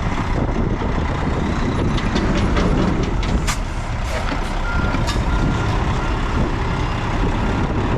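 Dump truck's engine running with a heavy, steady rumble while its reversing alarm beeps intermittently; a few sharp knocks sound about halfway through.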